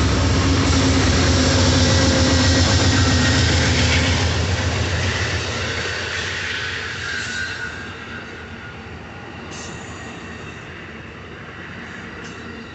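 Amtrak Superliner passenger train rolling past close by: a loud rumble of wheels on rails with a steady low hum, fading to a quieter, even rolling sound after about six seconds.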